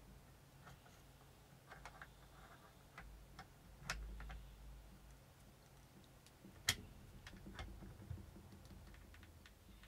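Faint, irregular small metal clicks and ticks of a tool and parts being handled as a 3-lug muzzle adapter is tightened onto the pistol's barrel, with the sharpest click about two-thirds through.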